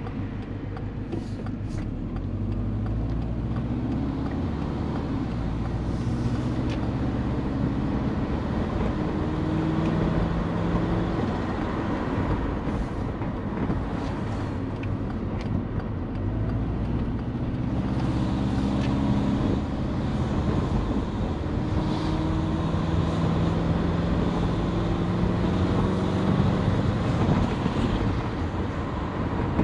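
Turbocharged Subaru Forester's EJ20 flat-four engine on the road under steady road noise. Its note climbs several times as the car pulls and then drops back.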